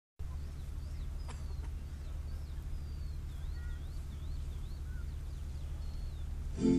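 Open-air ambience: a steady low rumble with faint, wavering bird chirps high above it. A strummed acoustic guitar comes in right at the end.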